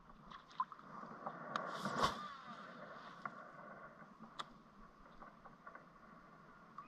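Small clicks and knocks from a kayak and its fishing gear as the rod is handled and cast, with a brief louder rush of noise about two seconds in.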